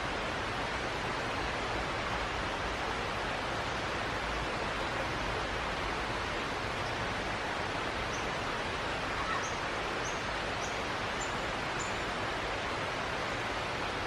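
Steady outdoor rushing noise, even and unbroken. About eight seconds in, a bird gives a short run of six quick, high, thin chirps, each a little higher than the last.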